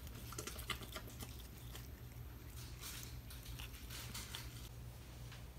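A pet licking at something: a faint run of small, irregular licking clicks over a low steady hum.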